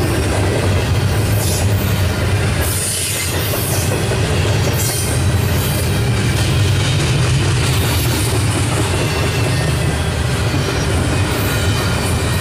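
Double-stack container train's loaded well cars rolling past: a steady rumble of steel wheels on rail with a clickety-clack clatter over the joints.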